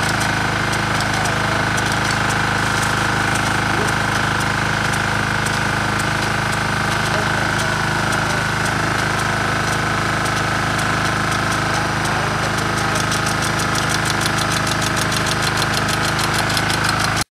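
Diesel engine driving a water pump, running at a steady speed under load, with the spray of the sprinkler guns hissing over it.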